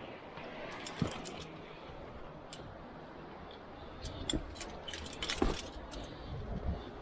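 Small metal items clinking and jingling in scattered bursts, busiest and loudest between about four and five and a half seconds in.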